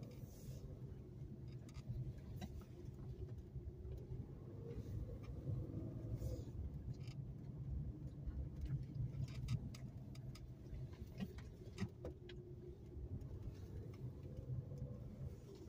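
Car driving slowly through an underground parking garage, heard from inside the cabin: a steady low engine and tyre rumble, with a few light clicks in the second half.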